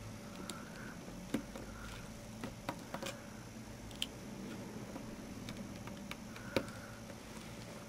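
Faint, irregular small clicks and taps of a T6 Torx screwdriver working the tiny screws out of a Nokia N73's keypad frame, with the phone and screws being handled. There are about half a dozen clicks, with a cluster around three seconds in and a sharper tap near the end, over a faint steady hum.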